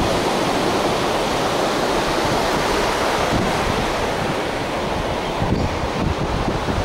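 Sea surf breaking and washing up on a sandy beach, a steady rushing wash, with wind buffeting the microphone in low rumbles.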